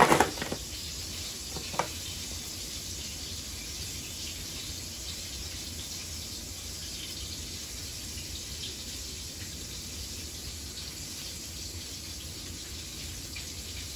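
Steady hissing background noise with a low hum underneath, and a single click about two seconds in.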